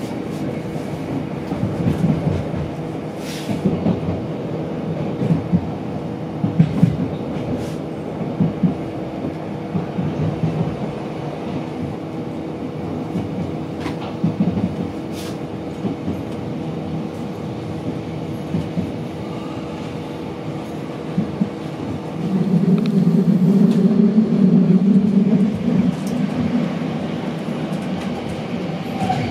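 Regional express train running, heard from inside the carriage: a steady low rumble from the track with a constant hum and a few sharp clicks. About 22 seconds in the rumble grows louder for some five seconds, then eases back.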